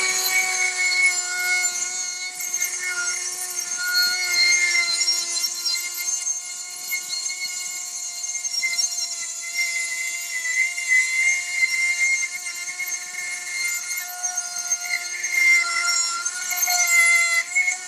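Dremel rotary tool with a router bit running at high speed, a steady whine with hiss, cutting into the babbitt to clean up the oil hole in a Model T main bearing cap. The pitch wavers slightly as the bit is pressed into the metal.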